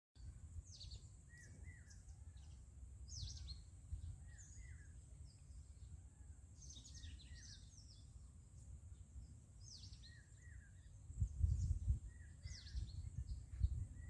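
Birds chirping again and again, short high falling notes with lower curved calls between them, over a low rumble on the microphone that swells in gusts near the end.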